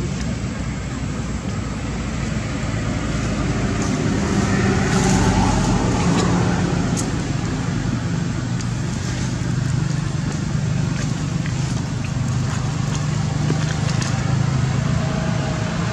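A steady low motor hum under a constant noisy wash, with a few faint clicks.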